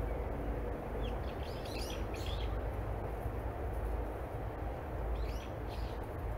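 Small birds chirping in two short bursts of quick high notes, about a second in and again about five seconds in, over a steady low outdoor rumble.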